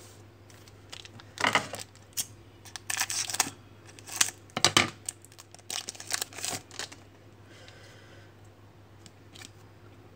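A trading card pack's shiny foil wrapper being torn open and crinkled by hand, in irregular crackling bursts that die down after about seven seconds.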